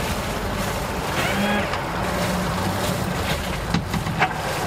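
Twin Yamaha 300 horsepower outboard motors idling as the boat creeps forward, a steady low hum with water churning, broken by two sharp knocks near the end.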